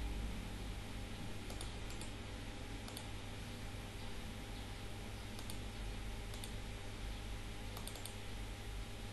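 Scattered computer mouse clicks, a handful spread out with a quick run of three near the end, over a steady low hum and hiss from the recording.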